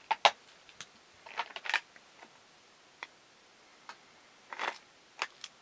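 Irregular light clicks and taps from handling a small clear plastic specimen box, some in quick little clusters.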